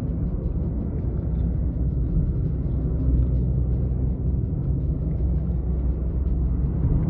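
Steady low drone of engine and road noise inside the cabin of a Volkswagen Jetta 1.4 TSI travelling at highway speed.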